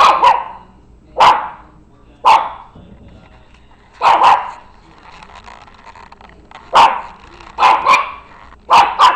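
Small puppy barking in short, sharp yaps, about a dozen over several seconds, several coming in quick pairs.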